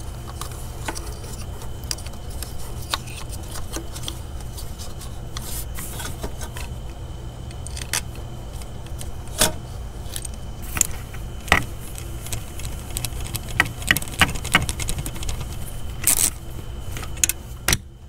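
Clicks, scrapes and rattles of new coil-on-plug ignition coils being pushed down onto the spark plugs of a Ford 6.8L V-10, coming thicker in the last few seconds, over a steady low hum.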